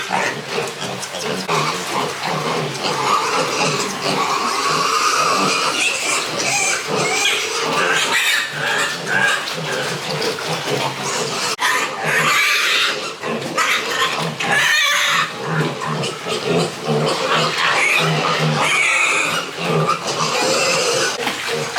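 Pigs grunting continuously.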